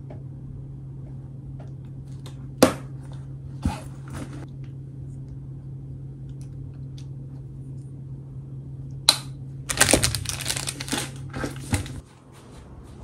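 A few separate sharp clicks and taps, then about nine seconds in a loud stretch of rustling and handling as a fabric tote bag is packed and picked up. A steady low hum runs underneath and stops near the end.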